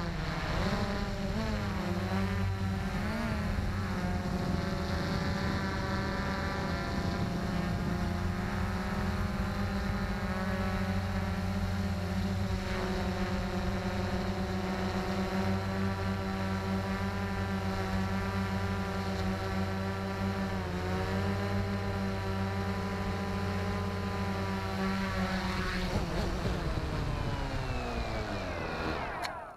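XK X380 quadcopter's motors and propellers running steadily, heard close up through its own onboard camera, the whine wavering in pitch as it manoeuvres. Near the end it lands and the motors wind down in a falling whine before cutting off.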